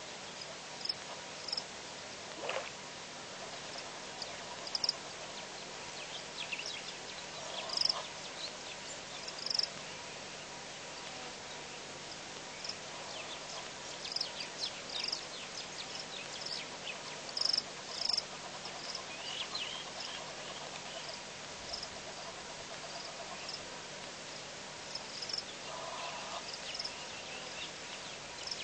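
Outdoor bush ambience: scattered short high chirps and ticks over a steady hiss.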